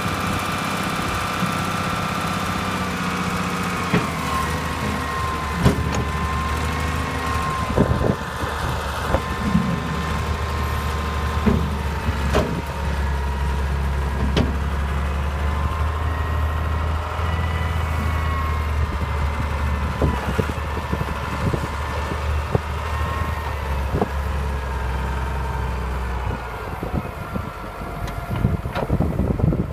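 John Deere 544 wheel loader's diesel engine running steadily, its note shifting slightly a few seconds in and again near the end, with scattered sharp metallic clanks.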